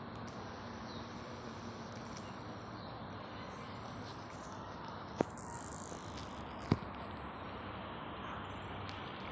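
Domestic cat snoring softly in its sleep. Two sharp clicks, about a second and a half apart, come near the middle.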